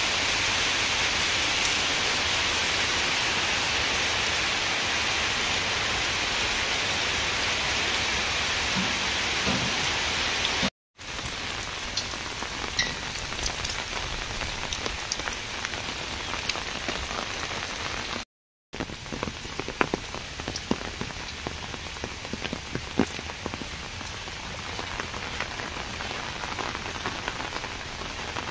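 Steady rain falling on wet ground and puddles, a dense hiss with many small drop ticks. The sound breaks off briefly twice, and after the first break the individual drops stand out more.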